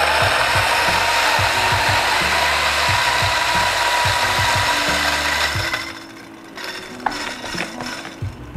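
DF83V flat-burr coffee grinder (83 mm burrs) grinding a single 18 g dose of beans at 800 RPM: a loud, steady crunching grind over the motor's whine. It falls away sharply about six seconds in, leaving lighter scattered clicks.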